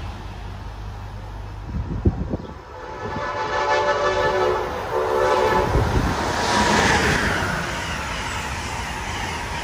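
Train horn sounding a chord of several tones in two blasts, a longer one then a short one, as a train passes through the station, followed by the rushing noise of the train going by. A sharp knock comes just before the horn.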